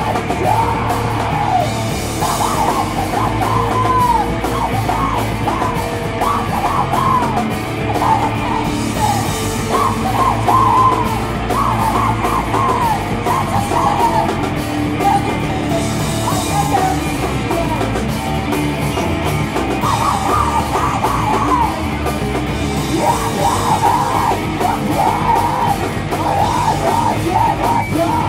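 Live band playing loud, heavy rock with a vocalist screaming into a microphone over it.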